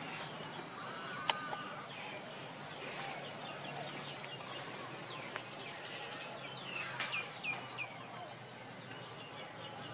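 Outdoor background noise full of short, high chirping calls, with a cluster of louder chirps about seven seconds in. A single sharp click comes about a second in.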